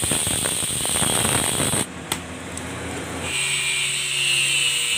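Electric angle grinder cutting into the steel core of a used water-pump motor's stator, a loud running grind with a high whine. It cuts off abruptly about two seconds in, and a quieter steady sound with a high whine and a slowly falling tone follows.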